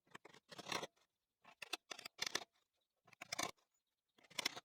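Small nails being driven into pine slats, heard as short groups of quick, sharp taps with short pauses between.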